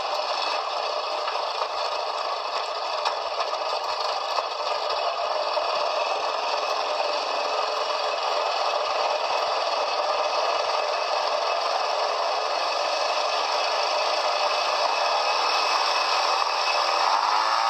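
Quad bike engine running steadily under a constant rattle, growing a little louder near the end.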